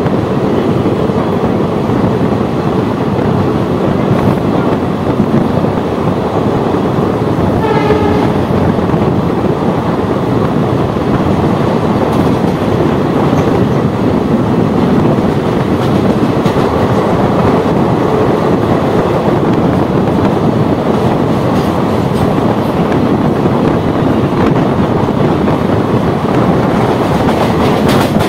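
Steady running noise and wheel clatter of an ICF passenger coach moving along the track, heard at its open doorway. A short train horn sounds about eight seconds in.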